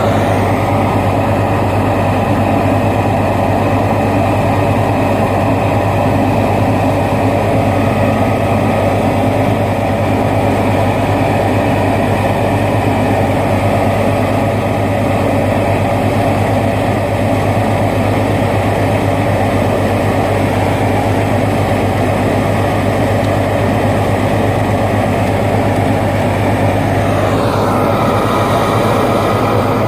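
Heavy grain truck's diesel engine running steadily with a low hum, with a rising whine near the end.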